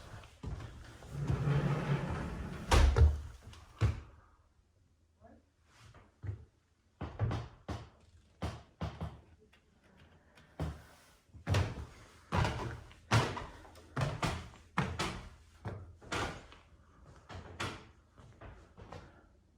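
A string of knocks and thumps, with one loud bang about three seconds in.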